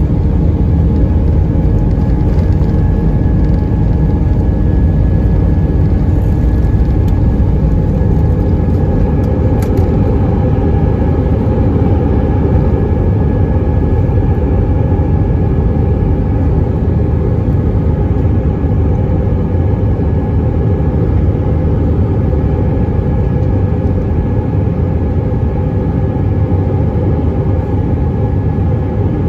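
Airbus A319-132 jet engines (IAE V2500 turbofans) at takeoff thrust, heard inside the cabin from a seat over the wing: a steady loud roar with steady whining tones, through the end of the takeoff roll, liftoff and the start of the climb.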